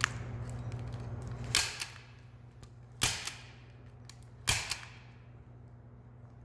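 Staple gun firing four times, about a second and a half apart, each a sharp snap as it drives staples to hold poly sheeting in place.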